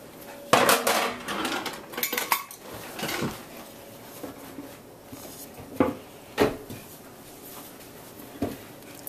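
Pots and pans clattering about half a second in, then a few separate knocks of a wooden spatula against a cooking pot while thick spinach sauce is stirred.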